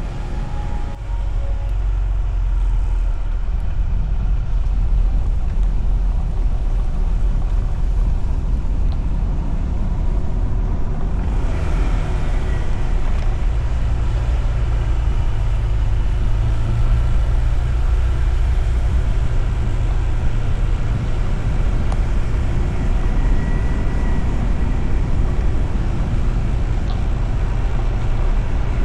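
A Honda ADV 160 scooter being ridden along a road, heard from onboard: a steady engine and road noise under a heavy low rumble of wind on the microphone. It grows louder and hissier about eleven seconds in.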